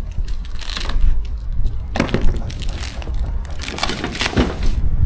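Packaging being torn and crunched in a few rough strokes as it is pulled off, over a steady low rumble of wind on the microphone.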